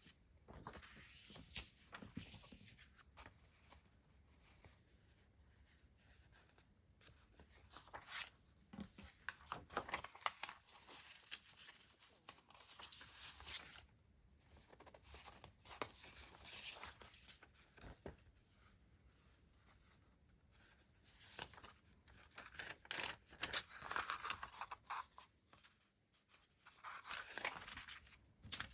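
Stationery packaging being handled and torn open in irregular bursts of rustling and tearing, with small clicks and taps between them.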